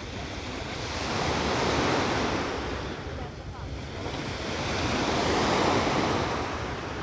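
Sea waves breaking and washing up the shore, swelling twice, with wind rumbling on the microphone.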